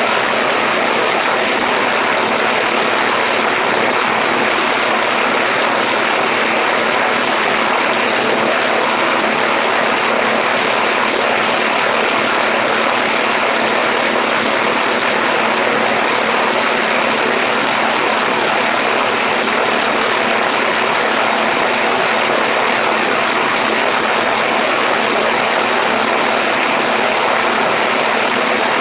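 Steady rushing wind blast over the microphone of a camera mounted on a Cessna 172's wing lift strut in flight, with the diesel engine and propeller faintly underneath.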